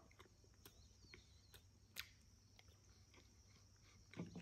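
A man quietly chewing a mouthful of chocolate chip muffin: faint, scattered wet mouth clicks and smacks, one a little more distinct about two seconds in and a few more near the end.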